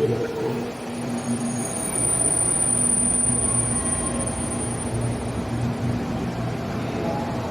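An electric train running through the station, with a steady low hum. A thin high squeal comes in about a second and a half in and stops near the end.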